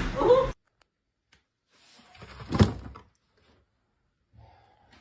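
A voice cuts off sharply half a second in, then a single short thud about two and a half seconds in, with faint small knocks around it.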